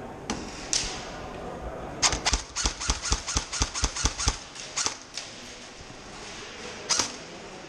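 Airsoft gunfire: a rapid string of about fifteen sharp cracks, six or seven a second, starting about two seconds in and lasting roughly three seconds. A few single cracks come before and after.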